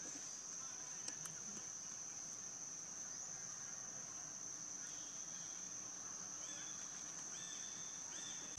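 Insects droning steadily at one high pitch, with a few faint short chirps in the second half.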